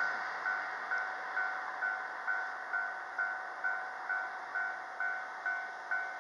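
Japanese level-crossing electronic warning bell ringing steadily at about two strikes a second, signalling that a train is approaching or passing. The rushing noise of a passing train fades away in the first second or so.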